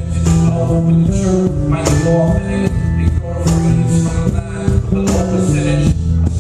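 Band playing a sound check: a stepping bass line under sustained chords, with a steady drum and percussion beat.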